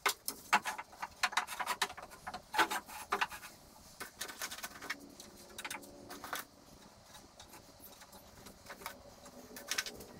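Light clicks and clatters of small hardware being handled and set down on a timber frame, around a plastic parts box. They come in a busy run over the first few seconds, then as scattered single ticks.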